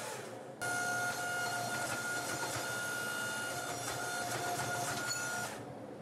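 Hydraulic forging press running under load as its dies squeeze a glowing stacked billet in a forge weld of pattern-welded steel: a steady mechanical whine that starts suddenly about half a second in and cuts off near the end.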